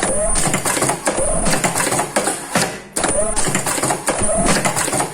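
Face-mask ear-loop attaching machine running in continuous production, its mechanism clattering through a repeating cycle of roughly one mask every three seconds, with a steady high-pitched whine.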